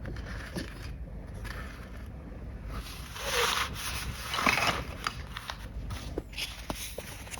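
Hands handling a plastic toy cash register and its parts, rubbing and scraping, with two longer rustling swells around three and four and a half seconds in and light clicks near the end.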